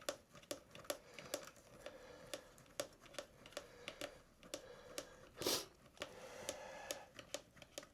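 Light, irregular clicks and taps of tools and parts being handled while loosening a fastener on a motorcycle, with one short, louder rasping sound about five and a half seconds in.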